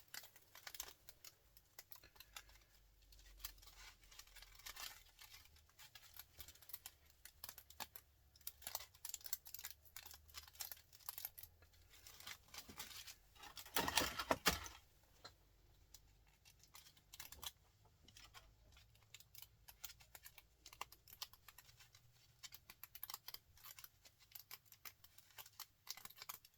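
Many light clicks and scratches of small scrap parts being handled and picked apart by hand, with a louder scraping rustle lasting about a second a little past halfway.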